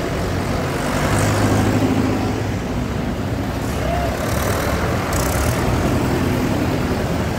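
Several diesel tractor engines running together as a procession of tractors drives along, a steady, dense engine sound.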